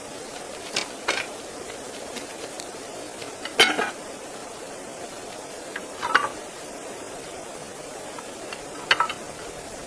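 Steady sizzling hiss, as of food frying in a pan, with about five sharp metal clinks and scrapes of a utensil against the pan, the loudest about three and a half seconds in.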